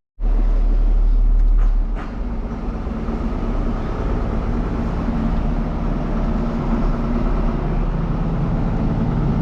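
A farm machine's diesel engine running steadily. It is louder for about the first two seconds, with a couple of short knocks around then.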